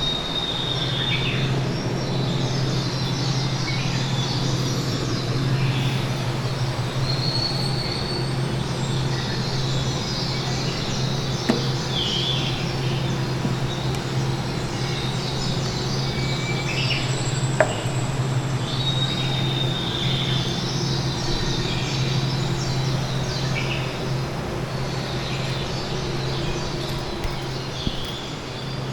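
Steady rushing water of a mountain stream or falls with a low hum beneath it, and short bird chirps every few seconds.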